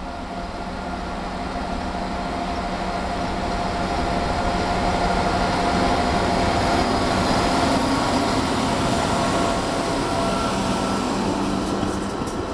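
LE 5100-class electric locomotive running in at the head of a passenger train, with a steady hum carrying a constant tone. It grows louder over the first several seconds as the locomotive nears, then the coaches roll by with steady wheel and rail noise.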